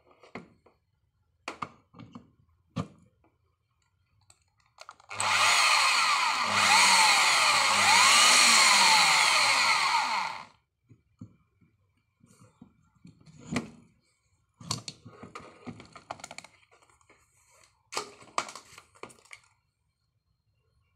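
Corded electric hand drill running for about five seconds, its motor speed rising and falling a few times, then cutting off. Before and after it, short clicks and knocks of a plug and cords being handled.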